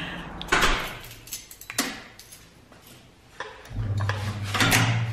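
Clicks and knocks of a door and its metal handle being worked, followed near the end by a low steady hum lasting about a second.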